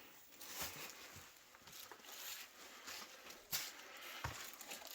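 Faint, irregular taps and rustles of someone moving about on foot, with a few sharper knocks.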